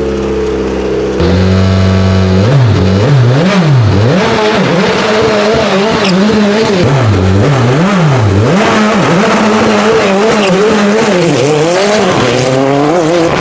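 Hillclimb race car engine held at a steady high rev on launch control, then launching about a second in and accelerating away. The revs rise and fall again and again, roughly once a second, as it changes gear.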